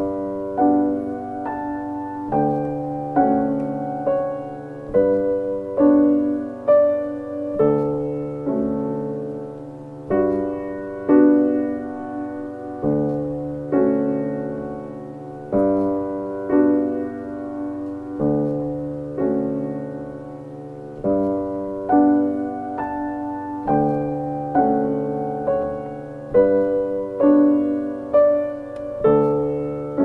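Background piano music: single notes and chords struck at an unhurried pace, each fading away before the next.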